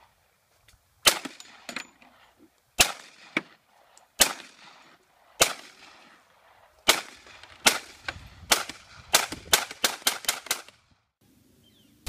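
Rifle shots fired one at a time, about a dozen sharp cracks each with a short echo. They are spaced a second or more apart at first, then come as a quick string of about six near the end.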